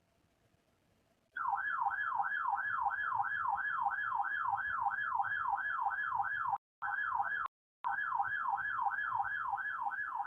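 Weather alert radio's warning alarm: a warbling electronic siren tone sweeping up and down about three or four times a second. It starts about a second and a half in, with two brief dropouts around the middle, and signals that a warning is being received.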